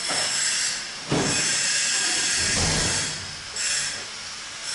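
Loud hissing in repeated bursts, with a dull thud about a second in and a low rumble partway through.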